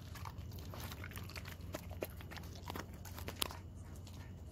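A dog eating from a plate: irregular small chewing and lapping clicks as it takes mouthfuls of soft food.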